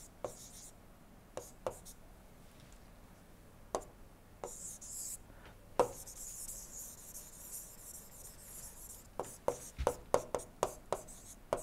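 A pen stylus tapping and scratching on a tablet screen while writing. Sharp single clicks come every second or two, with a faint hiss of pen strokes in the middle, then a quick run of taps near the end.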